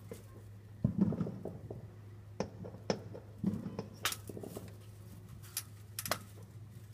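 Distant backyard fireworks going off: a couple of dull booms, one about a second in and one near the middle, among scattered sharp cracks and pops.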